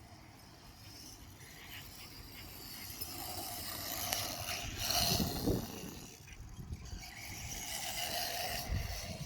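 BSD Onslaught radio-controlled basher driving, its motor and drivetrain whining and rattling. It grows louder as it comes close about five seconds in, and again near the end. Its prop shaft is bent.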